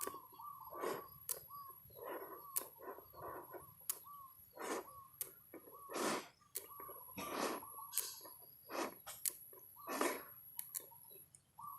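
Background birdsong of short, repeated chirps, with sharp, irregular clicks of small magnetic balls snapping together.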